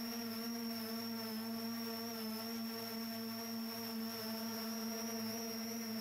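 Volocopter VC200's eighteen electric rotors hovering, a steady hum with a high whine over it.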